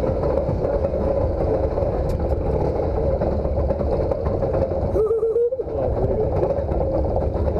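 Alpine coaster car running along its track: a steady rumble of the wheels with a constant hum, and a brief wavering higher tone about five seconds in.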